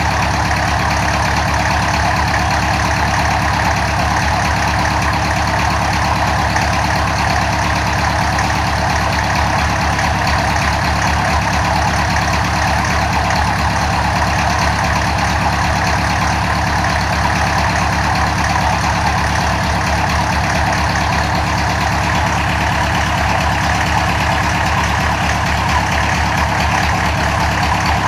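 Engine of a home-built helicopter idling steadily at an even speed.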